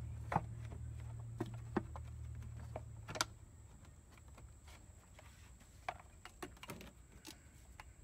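Scattered light clicks and knocks of hand tools and parts being handled, several close together near the start and a cluster about two-thirds in, over a low hum that stops after about three seconds.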